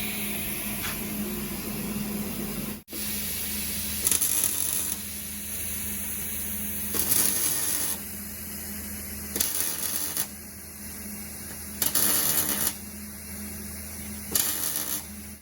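Welding on a sectioned car frame: five short welding bursts, each about a second long, spaced a couple of seconds apart over a steady background hum.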